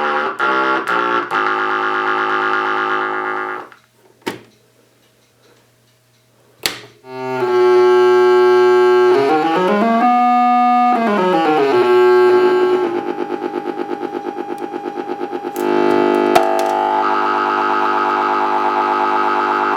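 Dubreq Stylophone 350S synthesizer playing sustained buzzy notes. It plays a few quick note changes, falls silent for about three seconds except for a few clicks, then holds a tone whose timbre sweeps down and back up. Next comes a pulsing wobble of about four a second, and near the end a steadier, brighter tone.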